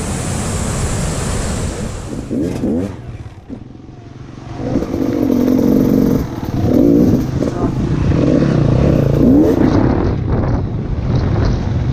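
Wind rushing for the first couple of seconds. Then, from about four and a half seconds in, an enduro dirt bike's engine runs and revs up several times in short blips.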